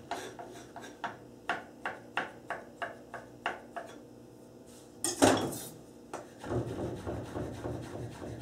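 Chef's knife chopping black summer truffles on a wooden cutting board, with crisp strokes about three a second. The chopping pauses, a louder knock comes about five seconds in, and then the strokes go on in a denser, rougher run.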